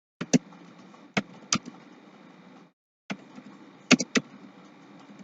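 Computer keyboard keystrokes: a handful of sharp, irregular key clicks over faint hiss.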